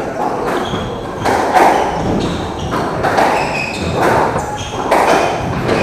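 Squash rally: the ball is struck by rackets and knocks against the court walls again and again, with short high squeaks from shoes on the wooden court floor.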